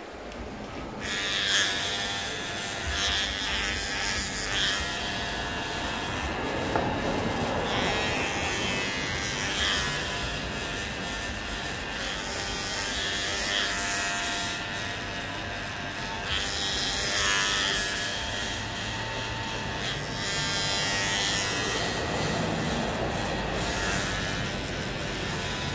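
Corded electric hair clippers running steadily while cutting hair on a scalp. The buzz turns brighter about a second in.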